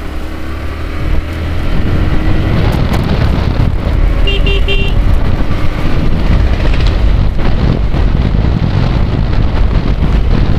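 Bajaj Pulsar NS motorcycle running at road speed, its engine and road noise getting louder about two seconds in. Near the middle a horn gives three or four quick beeps.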